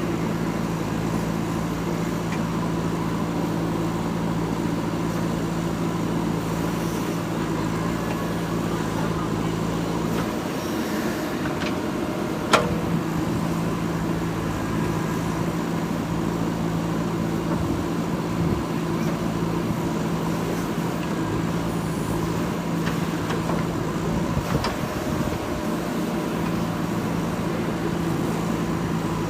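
JCB 3DX backhoe loader's diesel engine running at a steady note; the note breaks up for a couple of seconds about ten seconds in, with a single sharp knock near the middle, and wavers again later on.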